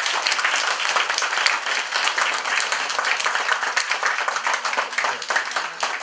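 Audience applauding: many hands clapping together in a steady, dense patter.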